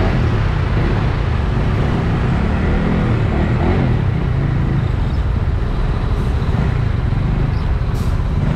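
Traffic noise in a slow-moving jam: engines of trucks and vans running close by, making a steady, loud low rumble.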